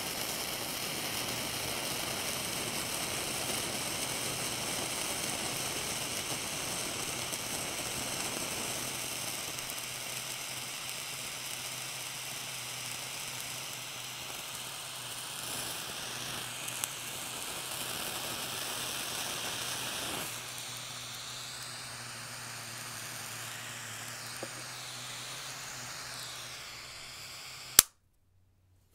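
Butane micro torch flame hissing steadily against a wedge of blue cheese as the cheese melts and scorches. The hiss drops in level about two-thirds of the way through. A single sharp click comes near the end, and the sound then cuts off suddenly.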